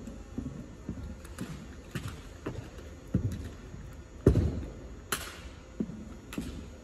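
Drill rifles being spun, slapped and caught in an armed drill routine: irregular sharp knocks and slaps, with footsteps on a hardwood floor, echoing in a large gym. The loudest knock comes about four seconds in.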